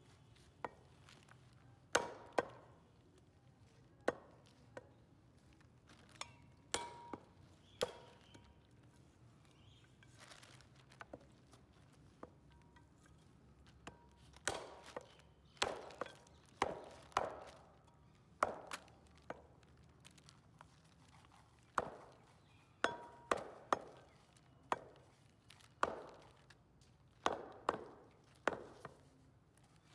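Cleaver chopping goat leg meat and bone on a round wooden chopping block: irregular sharp chops, sparse in the first half and coming in quick runs from about halfway, several with a short ring after the blow.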